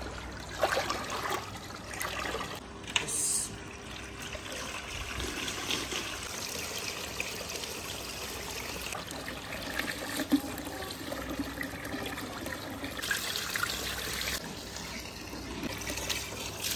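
Water splashing and trickling as a large batch of rice is washed by hand in a metal tub: the grains are swirled in the water and the cloudy rinse water is poured off.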